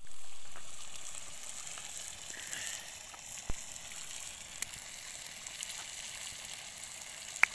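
Open wood fire under a cooking pot hissing steadily, louder at first and then easing off, with three sharp pops from the burning wood spread through.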